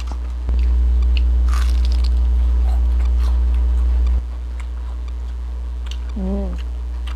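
Close-up chewing and biting of crispy fried vegetable lumpia, with scattered crackly crunches, over a loud steady low hum. A brief hummed "mm" comes about six seconds in.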